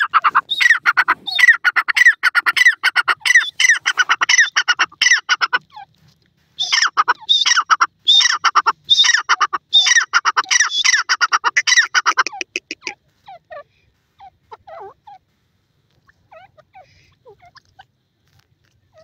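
Grey francolin calling: two long bouts of loud, rapid, repeated shrill notes with a short break between them, then only soft scattered notes in the last few seconds.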